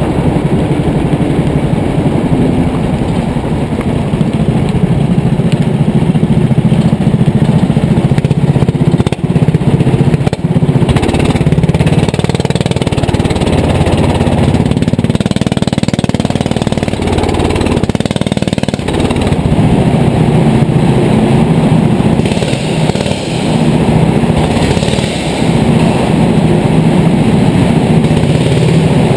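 Rental go-kart engine running close under the onboard camera, its pitch rising and falling as the kart brakes and accelerates through the corners.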